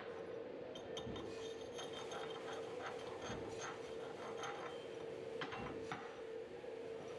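Chipping hammer knocking and scraping slag off a flux-cored (E71T-8) fillet weld on steel plate: a scattered series of light clinks and scrapes over a steady hum.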